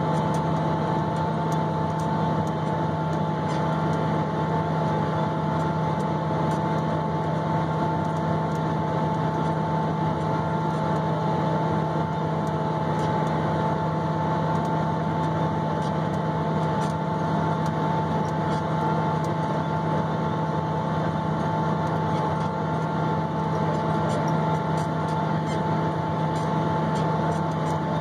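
Tractor engine running steadily under load while pulling a planter at field speed, a constant drone with a low hum and a steady whine above it.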